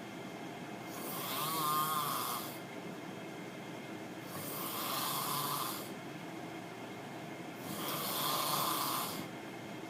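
A person snoring loudly: three snores about three and a half seconds apart, each lasting about a second and a half.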